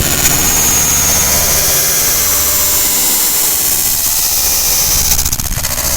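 Electric shock sound effect: a loud, continuous electrical buzzing and crackling over a low hum, with a high whine that comes in about a quarter second in and slowly drops in pitch.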